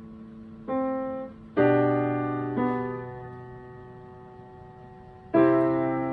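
Grand piano played slowly at sight. Three chords are struck about a second apart and left to ring and fade for nearly three seconds, then a louder chord comes in near the end.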